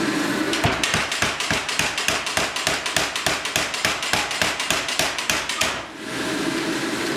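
Power hammer striking a red-hot bloomery steel bloom in rapid blows, about five a second, flattening it into a plate. The blows start about a second in and stop near the end, with the steady hiss of the gas forge before and after.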